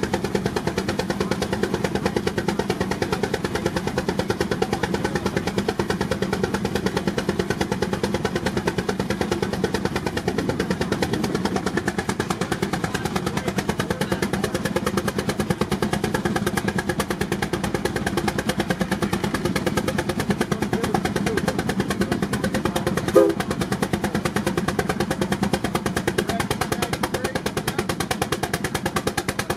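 A. D. Baker Uniflow steam traction engine working hard under load on a belt-driven Prony brake, its exhaust beating in a rapid, even rhythm. One sharp knock stands out about three-quarters of the way through.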